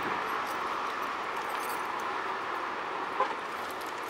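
Steady hiss of distant road traffic, with one brief faint chirp about three seconds in.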